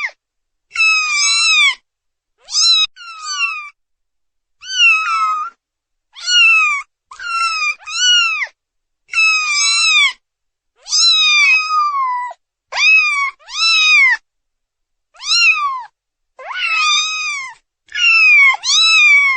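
Kittens meowing for their mother: high-pitched meows that rise and fall in pitch, coming in quick runs of two to four with short pauses between, some calls overlapping.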